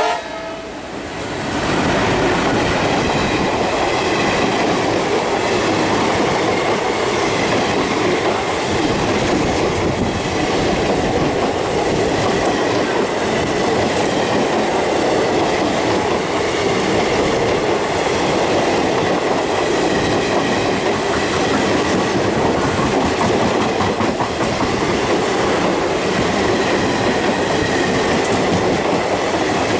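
Diesel-hauled Indian Railways passenger train passing close by on the next track. The sound rises sharply about a second and a half in, then settles into a loud steady rumble with the coaches' wheels clattering over the rail joints.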